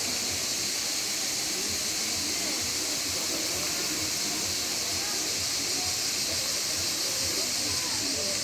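Waterfall rushing steadily, a constant loud hiss of falling water.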